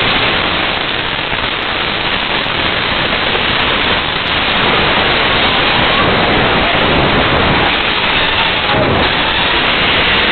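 Loud, steady rushing noise, like heavy rain, in the seconds after the blast wave of the 2020 Beirut port explosion has struck the apartment and shattered its windows. It begins abruptly with the blast and keeps up without letting off, covering everything else.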